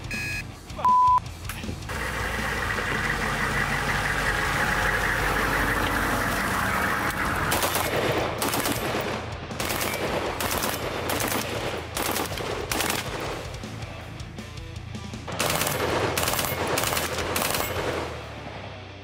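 A short, loud electronic beep, then background music, over which an AR-15 rifle fires a series of single shots at about two a second, with a brief pause partway through.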